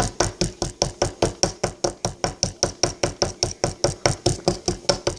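Rapid, regular tapping and chipping of a digging stick against a hard, plaster-like block, about six strikes a second, as it is dug at to free a buried toy.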